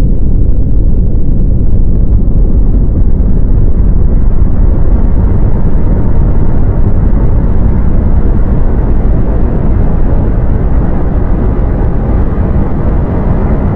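Rumbling sound effect: a loud, continuous deep rumble with no distinct strokes or tones, becoming a little brighter in the second half.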